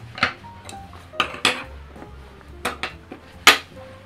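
Metal hand tools, such as calipers, dividers and a steel ruler, being set down one after another on a wooden workbench: a series of sharp clinks and knocks, some briefly ringing, the loudest about three and a half seconds in.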